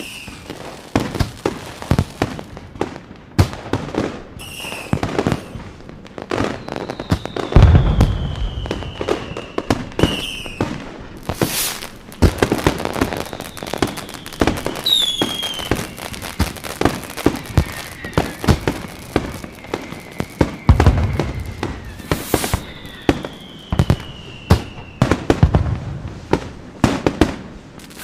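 Fireworks going off in quick succession: a dense run of sharp bangs and crackles, several deep booms, and a few whistles sliding slowly down in pitch.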